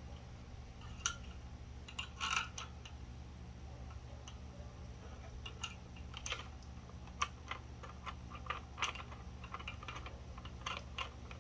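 Scattered light clicks and taps of hands handling the e-bike's headlight, its mounting bracket and cables, with a small cluster about two seconds in, over a faint steady low hum.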